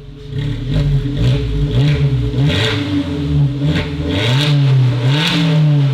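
Suzuki Jimny JB74's 1.5-litre four-cylinder engine revved in repeated blips, about once a second, with the rear exhaust section and muffler removed, so it runs louder and rawer than stock.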